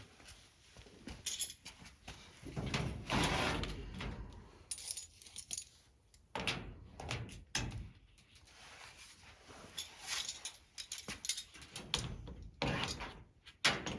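Irregular clattering, rubbing and knocking as a plastic rocker panel is handled and held up against the race car's body to be marked off.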